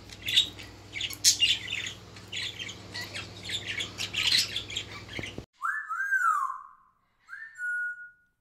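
Kakariki parakeet chattering with quick, rapid chirps and squawks over a steady low hum. About five seconds in, it cuts off suddenly, and a few clean whistled tones follow: two that rise and fall, then one that settles on a held note.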